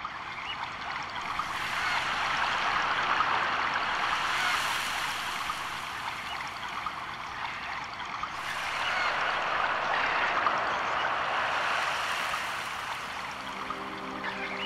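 A steady rushing, hissing noise that slowly swells and fades every few seconds. Sustained musical notes come in near the end.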